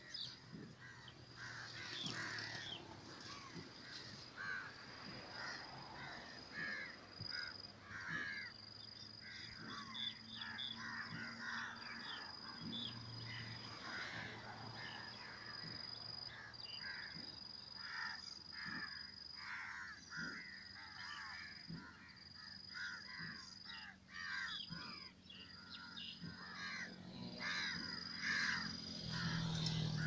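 A flock of crows cawing continuously, many short harsh calls overlapping as they gather to feed on scattered bread. Under the calls runs a steady high-pitched whine, broken every second or two.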